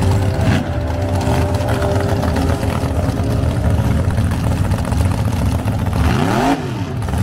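Drag racing engines idling in the staging lanes, a steady low rumble. About six seconds in, one engine revs up and drops back.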